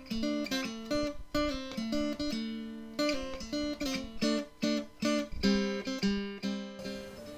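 Intro music: an acoustic guitar playing a run of picked notes and chords that ring out, stopping shortly before the end.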